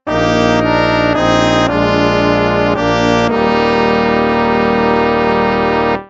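Instrumental background music: a run of held notes changing every half second or so, then one long held chord that cuts off suddenly at the end.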